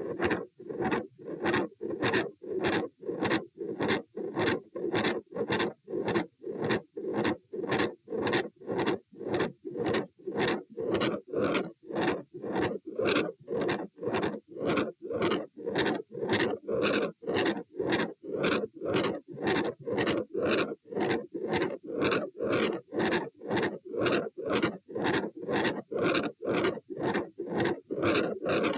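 Heartbeat listened to over the aortic area through a stethoscope: a regular, even run of beats, with a scratchy, rubbing edge to each beat.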